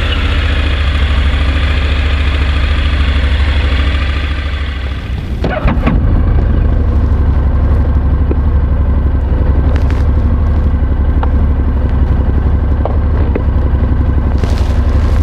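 Honda NC750X's parallel-twin engine idling steadily just after a start, with rustling and scraping from the microphone rubbing inside a fabric jacket pocket, loudest about five and a half seconds in.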